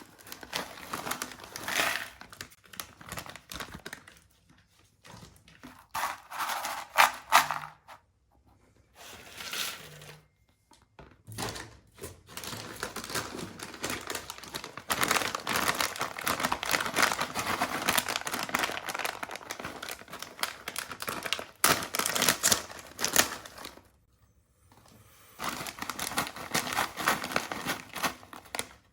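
Plastic ciki snack packets crinkling and tearing as they are handled and ripped open, in spells of rustling broken by short pauses.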